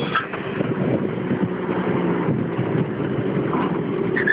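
50 cc scooter engine running steadily at riding speed, with wind noise on the microphone.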